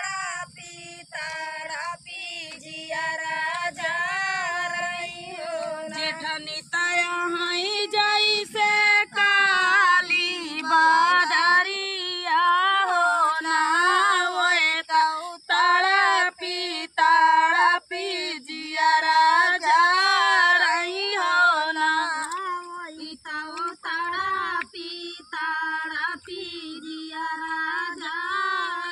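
A woman singing a dhaan ropai geet, a folk song sung while transplanting paddy, in phrases that rise and fall and pause briefly between lines.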